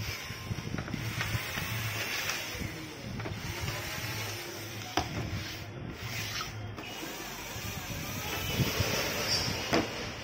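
Plastic casing of a Canon LBP 2900B laser printer being handled and slid about on a wooden desk: rubbing and scraping with a few light knocks.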